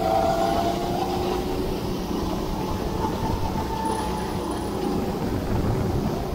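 Go-kart engine running under throttle on a wet track, its pitch rising and easing through the corners, over a steady rumble of tyre spray and wind on the onboard microphone.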